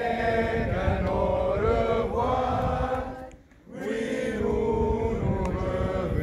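A group of scouts chanting in unison, sung in two long phrases with a short break about three and a half seconds in.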